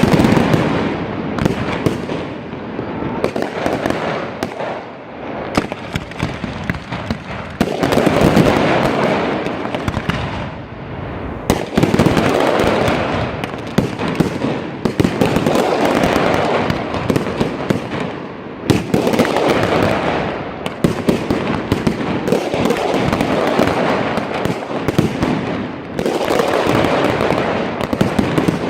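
Fireworks display with continuous volleys of bangs and crackling. Fresh, louder barrages break out about a third of the way in, again just before the middle, and about two thirds of the way through.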